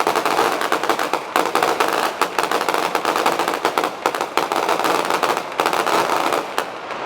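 Feu de joie: ceremonial rifle fire rippling down the ranks, a rapid, continuous crackle of many shots that thins out near the end.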